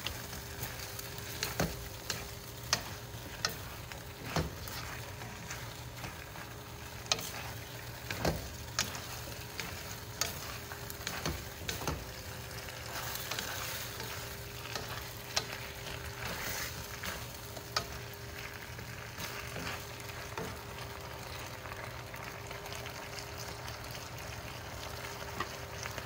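Beef and broccoli sizzling in a hot nonstick wok as they are stir-fried with a wooden spatula, with a steady frying hiss and sharp clicks and scrapes of the spatula against the pan, frequent at first and fewer in the second half.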